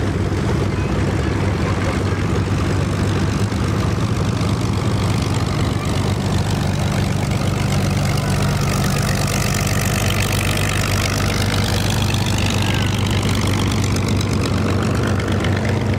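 Curtiss P-40 fighter's V-12 piston engine running at low power as it taxis past, a steady low propeller drone. Around the middle, as it passes closest, a sweeping shimmer runs through the upper part of the sound.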